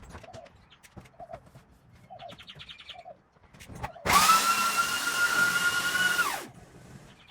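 Electric sander's motor starting abruptly a little over halfway through, running at a steady high whine for about two and a half seconds, then winding down. Before it, light scattered clicks and small chirps.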